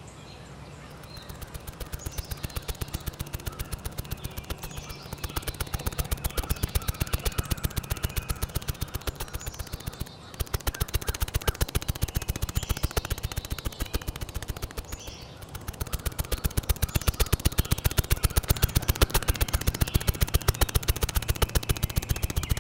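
Cartoon car engine sound effect: a rapid, even rattle of about five pulses a second that swells and fades several times. Birds chirp in the background.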